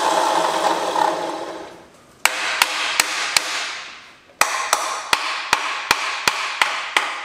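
Rusty starter motor on a Mercruiser 302 V8 whirring in three bursts, each winding down when it is cut off, while a hammer taps it, about three sharp knocks a second in the later bursts. The Bendix drive is rusted and stuck, so the starter is not engaging the engine.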